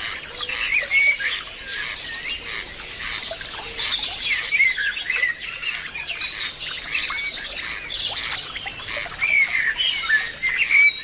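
Many small birds chirping and squawking in quick overlapping calls, over a steady high insect buzz.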